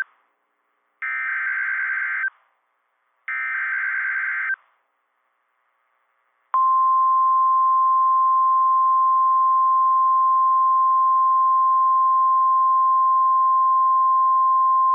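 Emergency Alert System SAME header data bursts from NOAA Weather Radio: the end of one buzzy burst, then two more, each about a second long. After a short silence the 1050 Hz warning alarm tone begins about six seconds in and holds as a single steady high beep for about nine seconds, signalling that a new warning message follows.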